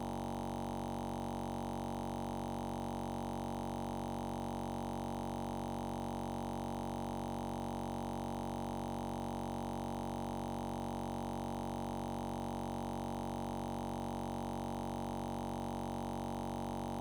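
Background music: one sustained synthesizer chord held without change, with no beat or melody.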